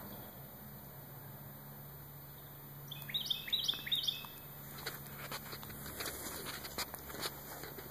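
A songbird calling a short phrase of three or four chirps about three seconds in. From about five seconds on it gives way to scattered rustling and clicks.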